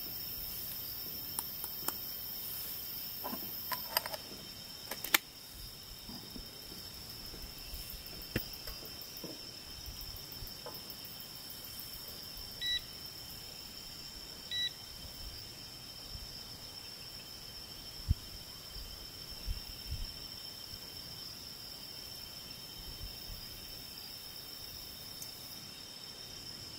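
Crickets chirring steadily, with a few taps and clicks in the first five seconds, the sharpest about five seconds in, as ground coffee is knocked out of a wooden hand grinder into a pour-over dripper. Two short electronic beeps from a digital coffee scale come about thirteen and fifteen seconds in, followed by a few soft knocks.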